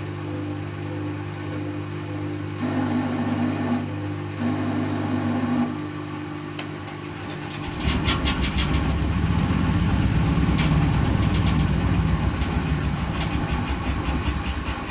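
Servis Automatic M3008B washing machine in its 500 rpm intermediate spin. The motor hums steadily, with a higher tone coming in briefly twice. About eight seconds in, the drum speeds up into a louder rumble with rattling clicks.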